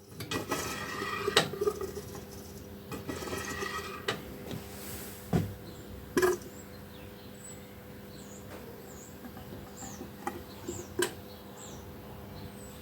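Ducati 749S front fork being stroked up and down to bleed air from freshly poured fork oil: scattered metallic clicks and knocks from the tube, with faint wet squelching from the oil. A steady low hum runs underneath.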